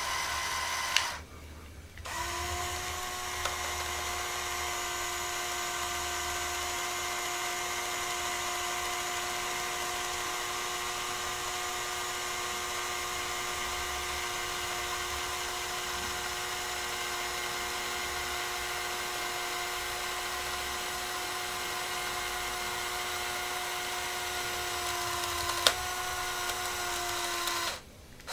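Small electric motor and gear train of a LEGO Technic sideloader forklift running with a steady whine as the side mechanism slowly draws the red load frame inward across the deck. It stops with a click about a second in, starts again a moment later, and cuts off near the end.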